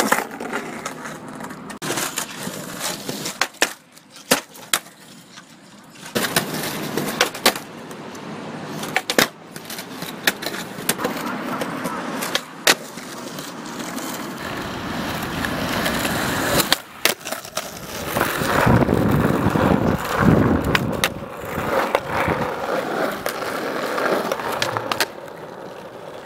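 Skateboard wheels rolling over concrete and asphalt, with many sharp clacks of the board hitting the ground. The rolling noise changes abruptly a few times.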